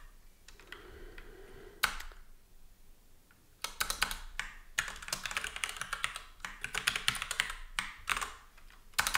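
Typing on a computer keyboard: a single keystroke about two seconds in, then a run of quick keystrokes from about three and a half seconds on.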